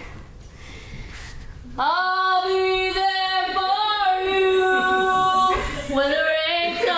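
A solo voice singing long, held notes with slow bends in pitch. It comes in about two seconds in, after a stretch of low room noise.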